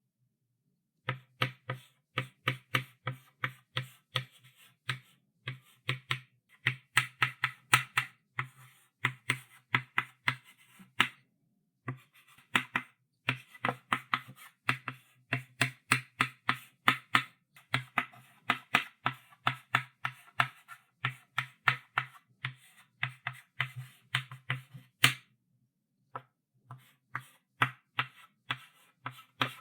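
Chalk writing on a blackboard: quick short strokes and taps, about three a second, each with a low knock from the board and a scratchy top. The writing pauses briefly twice, the second time right after a louder stroke.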